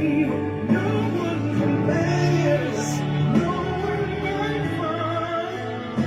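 Music with singing: a sung voice over sustained instrumental chords, typical of gospel worship music.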